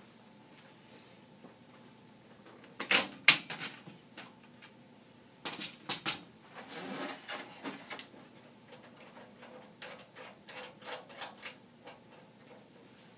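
Hands working on a Dell PowerEdge 840 server's case and parts, giving sharp clicks and knocks. Two loud clicks come about three seconds in, another cluster follows around six seconds, then a run of lighter clicks and rattles.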